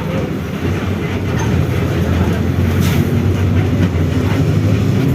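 Volkswagen 17-230 OD bus running on the road, with a steady low drone and loud growl from its drivetrain, where the rear differential growls loud. A sharp rattle sounds about three seconds in.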